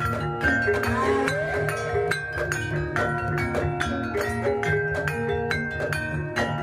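Jaranan gamelan music: metallophones play a repeating stepped melody over fast, steady drum strokes.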